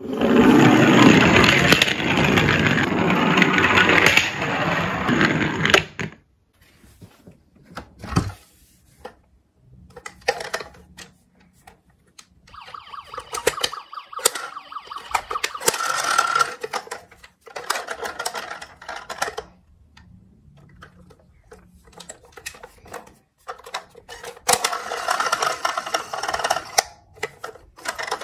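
Battery-operated toy emergency vehicles playing their electronic siren and sound effects through small speakers: a loud stretch from the toy ambulance for about six seconds, then the toy police car sounding twice, with plastic clicks and knocks from handling the toys in between.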